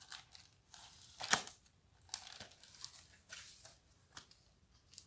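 A hardcover library picture book in a plastic jacket cover being handled: pages turning and the book shutting, with papery rustles and crinkles coming in uneven strokes and one louder thump about a second in.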